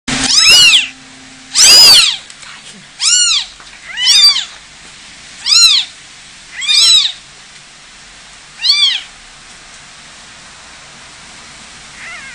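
Newborn feral kittens, abandoned by their mother, crying for her in loud, high-pitched mews that rise and fall in pitch, about seven cries in the first nine seconds, then one faint cry near the end.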